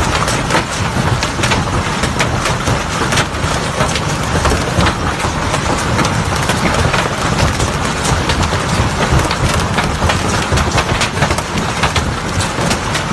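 Heavy hailstorm: a dense, loud roar of hailstones striking hard surfaces, with many sharp, separate cracks of larger stones standing out throughout.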